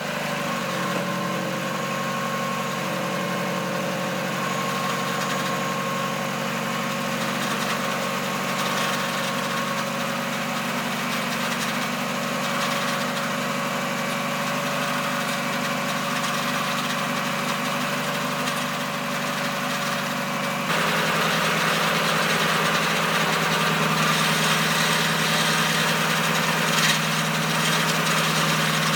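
NA Mazda Miata's inline-four engine idling steadily while the power steering system is bled after a pump replacement. About two-thirds of the way through, the sound abruptly gets louder and fuller in the low end.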